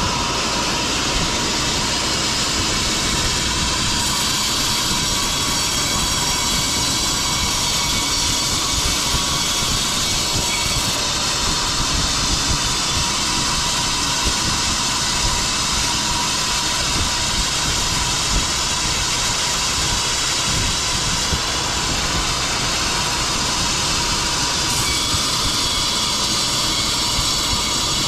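Sawmill machinery running steadily: a continuous loud mechanical noise with a faint steady whine, with no breaks.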